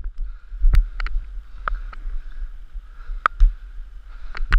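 Camera movement noise: a low rumble with sharp knocks and snaps at uneven intervals, about five in all, as the wearer moves through the forest.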